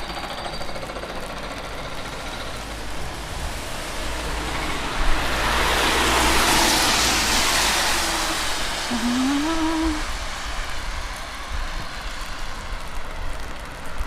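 A vehicle passing on a wet road: the tyre hiss swells to a peak about six or seven seconds in and then fades, over a steady low rumble of traffic. A brief rising tone sounds about nine seconds in.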